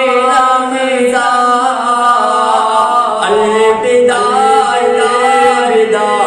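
A man singing an Urdu alvida kalaam, a naat-style farewell to Ramadan, unaccompanied into a microphone, in long held notes that step up and down in pitch.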